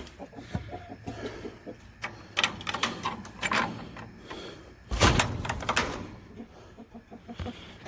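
Hens clucking in a chicken coop, with knocks and rattles from the coop door being handled, loudest about five seconds in.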